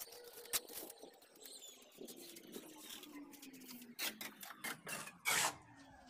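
Steel plastering trowel working wet cement mortar: a run of light clicks and scrapes, with a louder, longer scrape about five seconds in.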